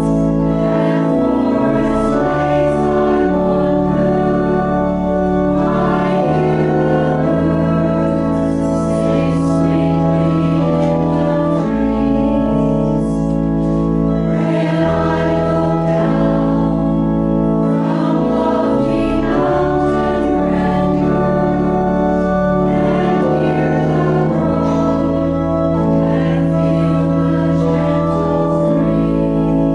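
Voices singing a hymn in parts with organ accompaniment: held chords over a bass line that moves every second or two.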